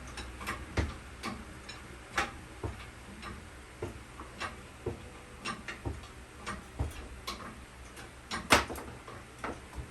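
A jack being pumped to raise a small metal lathe: a series of sharp clicks and knocks, about two a second, with one louder knock near the end.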